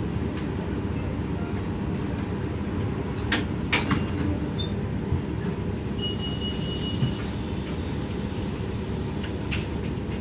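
Steady drone of a 2007 New Flyer D40LF transit bus's Cummins ISM diesel engine and ZF six-speed automatic transmission, heard on board, with a few sharp rattles of the body about three to four seconds in and again near the end. A brief high-pitched tone sounds about six seconds in.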